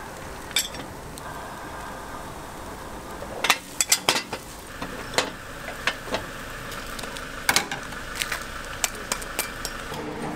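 Cast-iron bungeoppang (fish-bread) molds and a metal skewer clanking and clicking against each other as baked breads are pried out. The sharp clicks come in a quick cluster a few seconds in, then scattered, over a steady sizzle from the hot irons.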